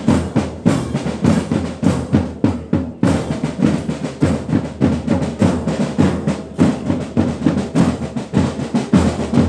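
Marching band drum line playing a steady march beat, a regular run of sharp drum strokes with deeper bass drum hits underneath.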